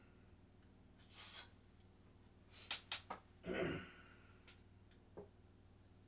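Small handling noises from objects being picked up and put down on a tabletop: a soft rush about a second in, two sharp clicks just before the middle, then a heavier thump, with a few faint ticks after.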